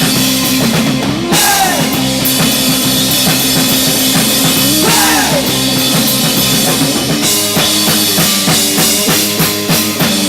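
Rock band playing live: sustained electric guitar notes with two string bends, over bass and drum kit, with a run of rapid drum hits in the last few seconds as the song winds toward its end.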